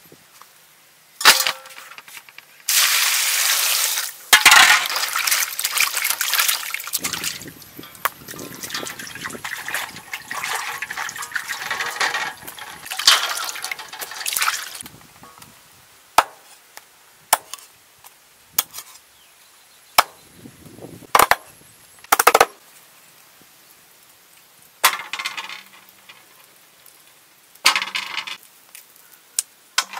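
Water splashed and poured over skinned snakes on a wooden chopping board for about twelve seconds, followed by about six sharp separate knocks on the board roughly a second apart as the snakes are chopped into pieces, and a few short splashes near the end.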